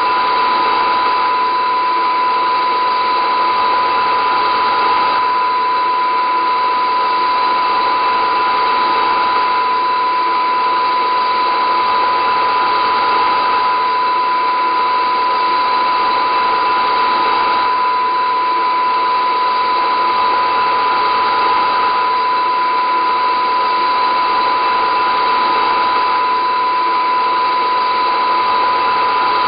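A loud, unchanging drone: dense hissing noise with a piercing steady tone near the middle of the range and fainter steady tones around it.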